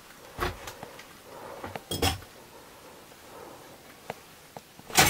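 Short metallic clinks and knocks: a couple about half a second in, a brighter clink with a brief ring around two seconds, and a louder clatter at the very end.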